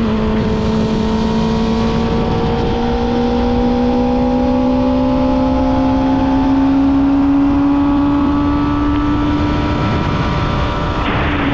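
2005 Suzuki GSX-R600's inline-four engine pulling at high revs, its pitch climbing slowly as the bike accelerates, then dipping slightly near the end. Heavy wind rush on the helmet or bike camera's microphone.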